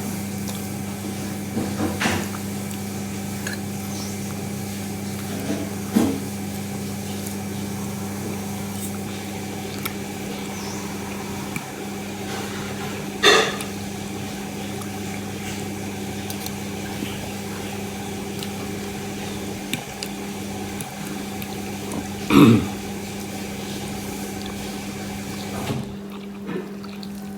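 A steady low electrical hum, with four short knocks of tableware spread through, as from eating a meal.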